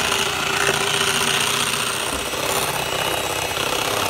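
Handheld electric mixer running steadily at speed, its beaters whipping heavy cream in a glass bowl, with a steady motor hum under the whirr.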